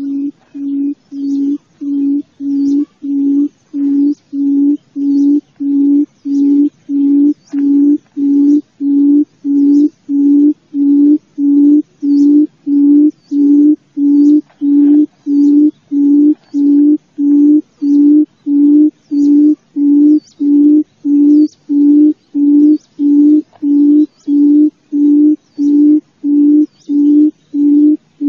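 Wild quail (chim cút rừng) calling: a long, even series of low hooting notes at one pitch, about one and a half a second, growing louder over the first few seconds. It is the call used to lure quail into cage traps.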